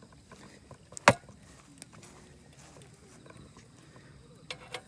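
A single sharp clank about a second in, then a couple of light clicks near the end: a Feuerhand Baby Special 276 hurricane lantern being hung by its wire bail on its stand.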